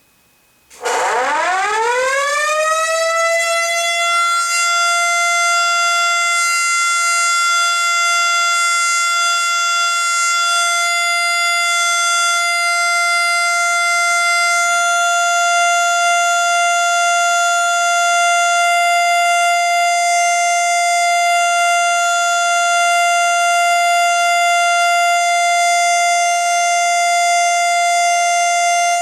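Federal Signal Model D electromechanical siren starting up about a second in, its pitch rising quickly and levelling off within a few seconds, then holding one loud, steady tone: the steady alert signal.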